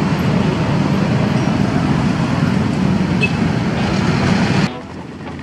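Steady roadside traffic rumble, which cuts off suddenly about four and a half seconds in.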